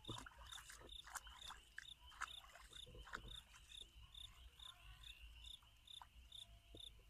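Crickets chirping faintly at night, a steady high trill with an evenly repeating chirp about two or three times a second, with scattered faint rustles and clicks.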